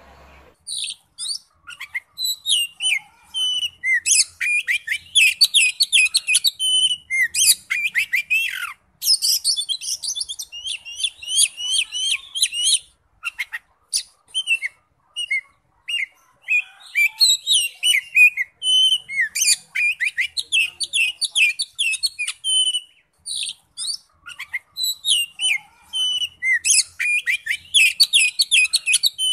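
Oriental magpie-robin singing a long, varied song of rapid whistled notes, slurs and trills, broken by a couple of short pauses.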